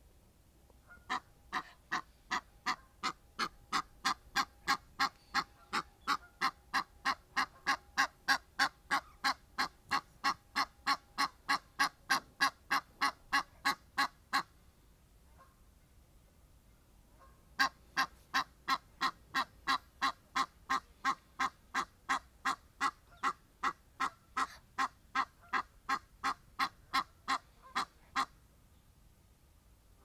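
Egyptian goose honking in a long, even series of rapid calls, about three a second, with a brief break about halfway before a second run of calls.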